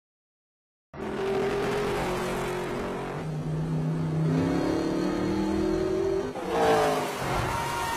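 About a second of dead silence, then a race car engine running hard, its pitch rising as it revs. A shorter, higher-pitched sound comes in near the end.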